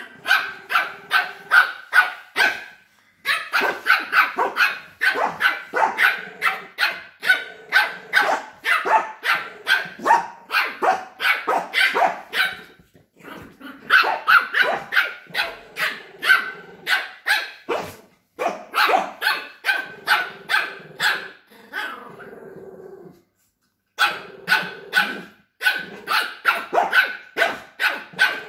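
Lhasa Apso puppy barking repeatedly, short high yaps in quick runs of about two to three a second, broken by a few short pauses.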